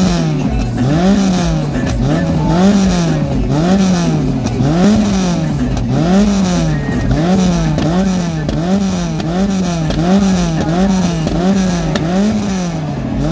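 Peugeot 106 1.4 Sport's four-cylinder petrol engine revved again and again through a stainless-steel aftermarket exhaust. The pitch rises and falls in quick throttle blips, a little more than one a second, and they come a bit faster in the second half.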